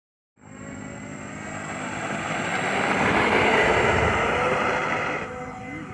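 Four electric motors and propellers of a model airplane, roaring loud. The sound swells to its loudest about three to four seconds in, then drops back just after five seconds.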